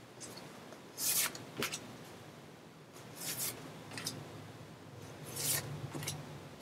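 Large card-stock photo cards being handled and slid against each other: several short papery rustles, the loudest about a second in.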